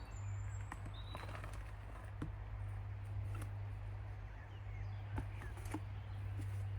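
Outdoor garden ambience: a few short, high bird chirps and scattered light clicks and rustles over a steady low hum.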